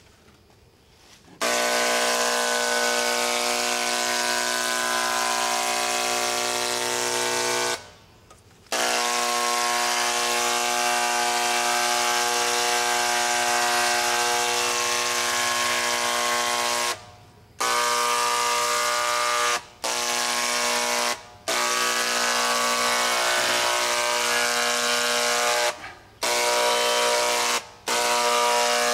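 Handheld electric paint sprayer buzzing steadily as it sprays. It starts about a second and a half in and cuts off briefly six times as the trigger is let go and pulled again.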